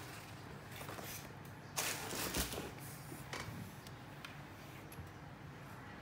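Handling noise as hands move a cardboard box and a Dell Inspiron 7577 laptop on a wooden table: a short burst of rustling about two seconds in and a few light knocks as the laptop is handled and its lid closed.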